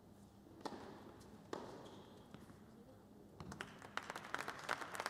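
Two sharp hits of a tennis ball about a second apart, then applause breaking out about three and a half seconds in and building as the point ends.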